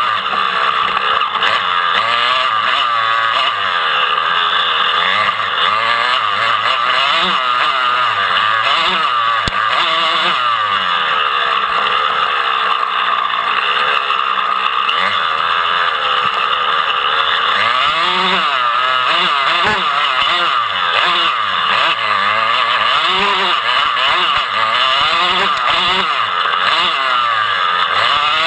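Dirt bike engines revving up and down, with several overlapping engine notes rising and falling.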